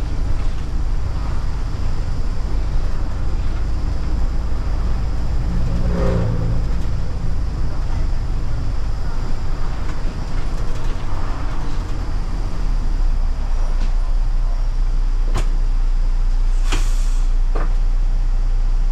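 Bus engine and road noise heard from the front of the cabin while driving, the engine note falling about six seconds in as the bus slows. Near the end, as the bus comes to a stop, a short hiss of air from the brakes, with a click just before and just after it.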